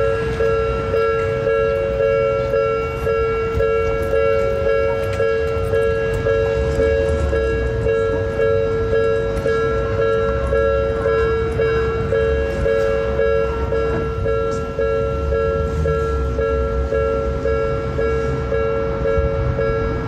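Japanese level-crossing alarm ringing steadily in two close pitches, over the low rumble of a Toden Arakawa Line tram running through the crossing.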